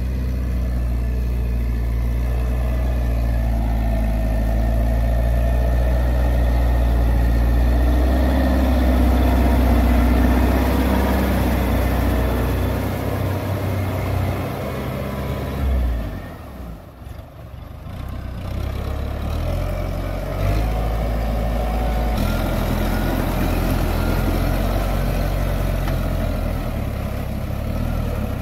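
Tractor diesel engine running steadily as it pulls a rotary tiller through a flooded rice paddy. The sound drops away briefly about two-thirds of the way through, then the engine note returns.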